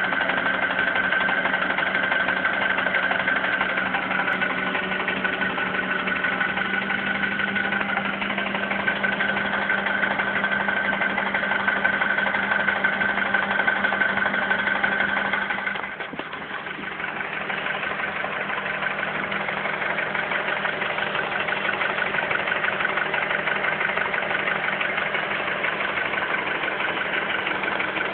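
Honda Accord's K20 2.0-litre four-cylinder engine idling with a knock, the fault the owner is showing. About halfway through a steady high whine drops out and the sound dips briefly before settling again.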